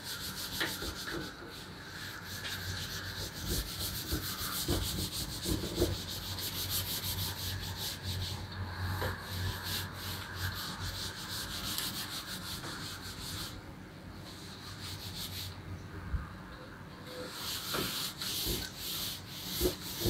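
A cloth wiping chalk off a chalkboard in repeated rubbing strokes, pausing briefly twice.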